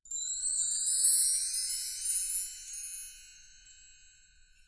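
Bright, shimmering chime sound effect with high tones sweeping upward, fading away over the last second and a half.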